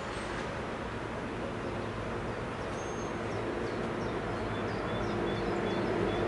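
A steady low mechanical drone with a faint held tone, growing slightly louder toward the end, with small birds chirping high above it.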